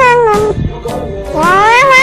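Domestic cat meowing. The tail of one long meow falls away in the first half second, and a second long meow rises and then falls from about a second and a half in, over background music.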